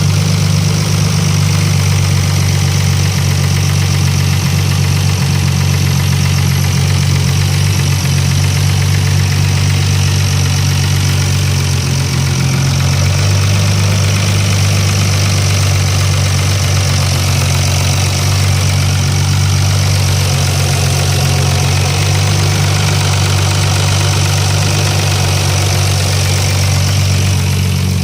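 Nissan RB25DE 2.5-litre straight-six engine idling steadily, with the lifter noise of its valvetrain: a tapping from the hydraulic lifters.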